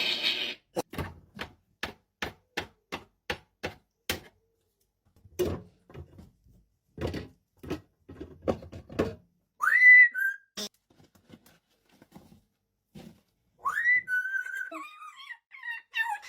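Parrot sounds: a quick run of sharp clicks, then several short cough-like rasps, then two whistles, each sliding up and settling on a steady note.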